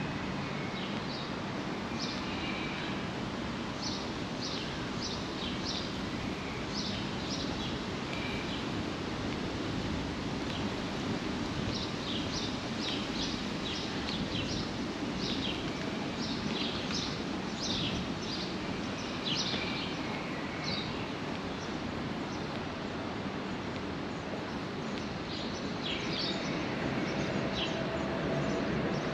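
Outdoor city ambience: a steady low city rumble under frequent short bird chirps from the street trees. The chirps come thickest in the middle and again near the end.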